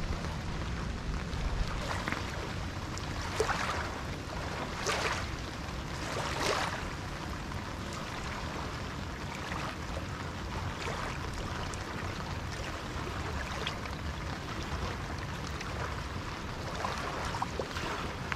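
Small waves lapping against shoreline rocks over a steady hiss of rain, with several louder laps in the first seven seconds and again near the end.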